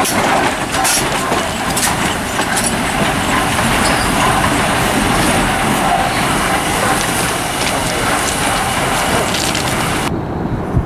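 Steam locomotive Central Railroad of New Jersey No. 113 and its passenger train rolling close past, with a steady rumble of wheels on rail and scattered clanks and knocks. The noise cuts out abruptly about ten seconds in, leaving quieter outdoor sound.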